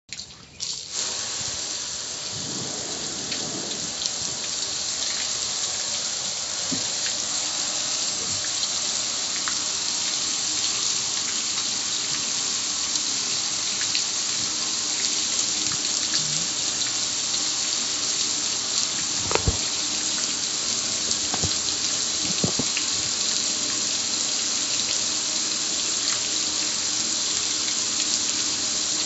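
Steady hiss of a garden hose spray hitting a gas grill's lid and streaming off it. It starts about a second in.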